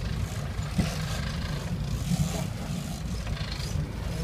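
Sport-fishing boat's engine running steadily, with a hiss of water splashing at the hull.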